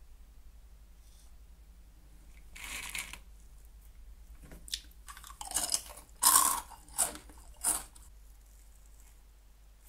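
Crispy crinkle-cut Nongshim Sweet Potato Snack sticks being bitten and chewed: a softer crackle nearly three seconds in, then a run of five or six sharp, loud crunches over about three seconds, the loudest in the middle.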